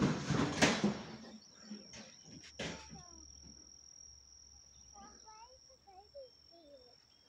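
A steady, high-pitched insect drone from the roadside vegetation. A few knocks and rustles of the phone being handled sound in the first three seconds, and faint distant voices come near the end.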